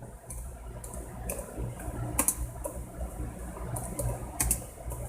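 Scattered sharp clicks at irregular intervals over a steady low hum.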